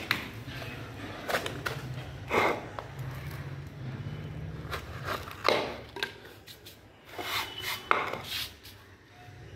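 Irregular scraping strokes and light knocks, about seven strong ones, as a flat scraper is drawn across packed casting sand to level the top of a small metal moulding flask, with the flask bumping on its metal base plate. A low steady hum runs underneath.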